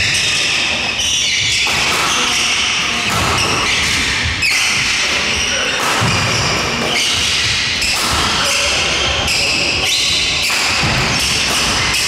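Busy badminton hall: echoing background chatter with scattered thuds of feet and shuttle hits on and around the wooden courts.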